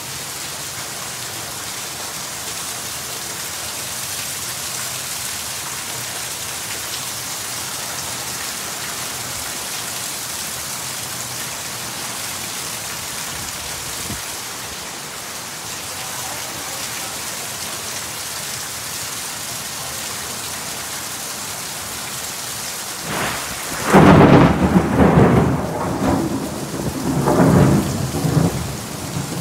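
Heavy rain falling steadily. Near the end, thunder breaks suddenly and loudly and rumbles on, swelling and easing several times.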